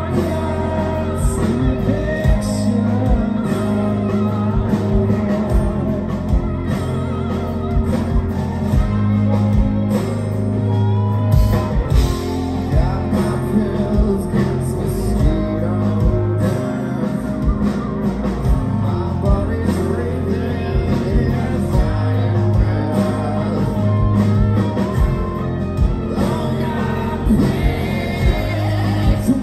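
Live rock band playing, with distorted electric guitar, bass, drums and a lead singer, recorded from the audience in a large hall.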